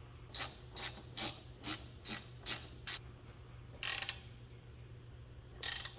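Hand ratchet clicking as it tightens the bottom caliper bolt of a rear brake caliper: seven short swings in a row at about two a second, then two longer runs of clicks.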